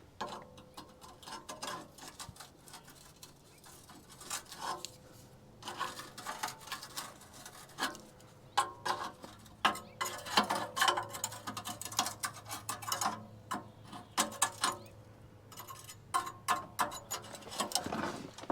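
Irregular metallic clicks, taps and scrapes of hand tools working at a rusted exhaust pipe joint, growing busier about six seconds in, over a faint steady hum.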